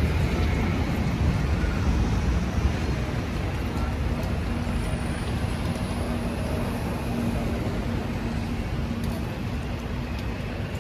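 Busy city street traffic with London double-decker buses and cars running close by. A low engine rumble is loudest in the first few seconds and then eases off, with a steady hum through the middle.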